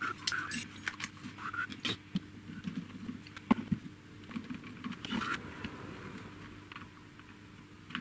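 Irregular small plastic clicks, taps and rattles as a CB radio hand microphone's housing is handled and pressed back together, over a faint steady hum.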